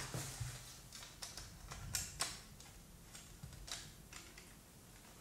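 Faint, irregular clicks and taps of hard plastic as a small part of a 1:700 Revell Bismarck plastic kit is pressed and fitted against the grey hull in a dry fit.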